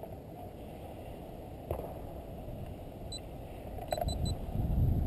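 A camera beeping as it is switched off: one short high beep about three seconds in, then three quick beeps, over steady low background noise.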